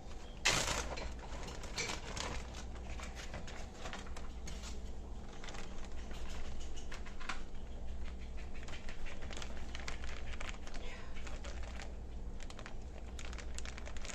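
Butter shrimp being dished out of the pan: irregular crackling and light clicks throughout, with a louder clatter about half a second in.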